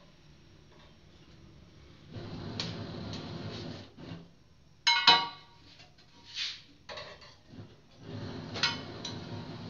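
Metal roti tongs clattering and scraping against the gas stove and burner while a roti is turned over the open flame. Stretches of scraping come with a few sharp metallic clinks, the loudest a ringing clank about five seconds in.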